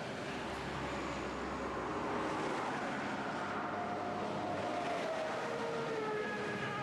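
Heavy lorries passing at motorway speed: steady tyre and engine noise, with the engine note sliding down in pitch as a truck goes by, about halfway through and again near the end.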